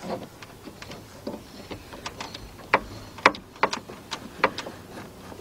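Irregular sharp clicks and taps of tools and parts being handled, with a cluster of louder clicks in the second half.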